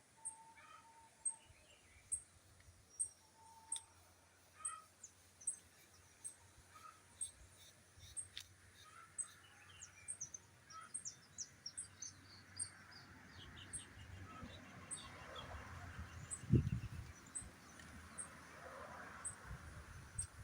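Birds calling and chirping in the countryside, with a thin, very high chirp repeating about every three-quarters of a second and scattered shorter calls. In the second half a soft hiss builds up, with a couple of low thumps near the end.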